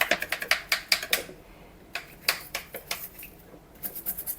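Light clicks and clatters of small hard items being handled: a quick run of clicks in the first second or so, then scattered ones.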